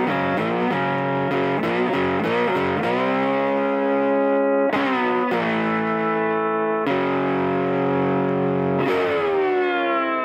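Distorted electric guitar music: quick picked chords for the first few seconds, then long held chords, the last one sliding down in pitch.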